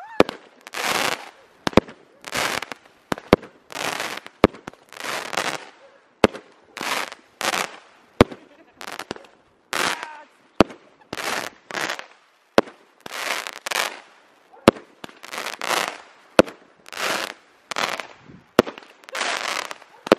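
Consumer multi-shot firework cake firing shot after shot: sharp launch reports with a crackling, sizzling burst after each, more than one a second.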